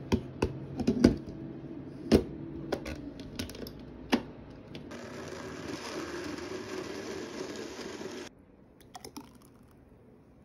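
Clicks and knocks of plastic as the ingredient-filled cup of a Cuckoo personal blender is fitted onto its motor base. Then the blender motor runs steadily for about three seconds, blending the fruit and vegetables, and stops abruptly, followed by a few light clicks.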